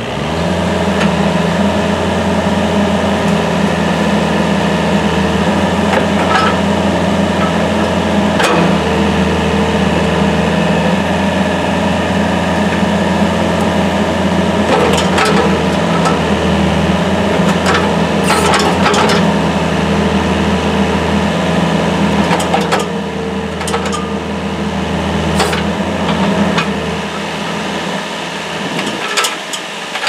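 2010 John Deere 50D compact excavator's engine running steadily under throttle as its boom, arm and bucket are worked hydraulically, with a handful of sharp knocks and clanks from the working machine scattered through.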